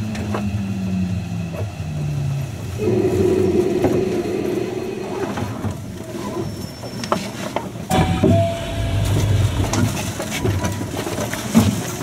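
Inside a Hankyu New 1000 series electric train standing at a station platform: a steady low hum of onboard equipment with scattered clicks and knocks. About eight seconds in comes a sudden thump followed by a low rumble.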